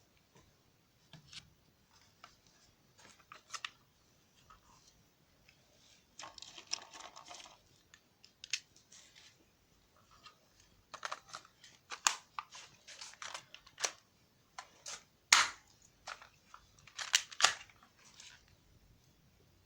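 Airsoft pistol being handled: scattered sharp plastic clicks and knocks, with a short rattle about six seconds in and the loudest click about fifteen seconds in.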